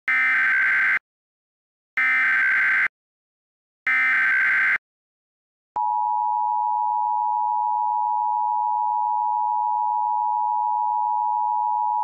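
Emergency Alert System header: three one-second bursts of SAME digital data screech, about a second apart, then about six seconds in the steady two-tone EAS attention signal begins and holds.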